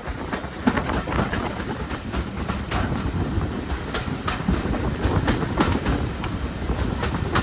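Railway carriage running along the track: a steady low rumble with irregular clicks and clatter of the wheels over the rails, heard from an open carriage window.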